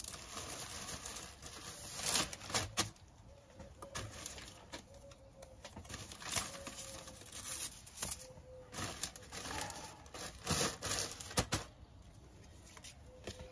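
Plastic bags rustling and crinkling as bagged clothing is handled, in short irregular spells with a few sharp crackles.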